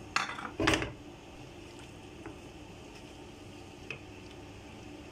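Wooden spatula stirring freshly added sliced onions in oil in a non-stick frying pan: two short scraping bursts about half a second apart near the start, the second louder. After that only a faint steady background remains, with one light tap near four seconds in.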